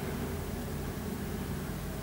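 High-reach demolition excavator running steadily, its diesel engine humming as the long boom is raised.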